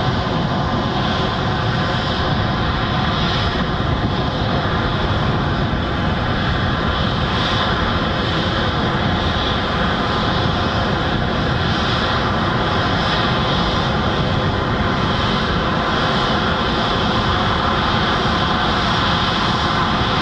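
Airbus Beluga XL's twin Rolls-Royce Trent 700 turbofan engines running steadily at low power: a steady rushing roar with a whine of fine tones on top.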